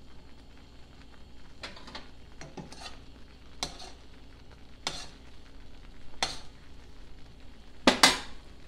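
A metal spoon stirring thick milk gravy in a stainless steel frying pan: scattered scrapes and clinks against the pan every second or so, the loudest pair near the end.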